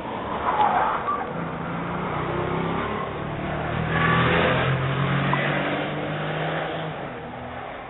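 A car engine revving and accelerating, its pitch climbing and stepping up, loudest about halfway through and fading near the end. It is heard through a doorbell camera's narrow-band microphone.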